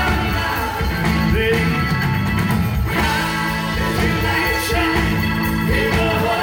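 Live rock band playing at full volume through a concert PA, with a voice singing over the band.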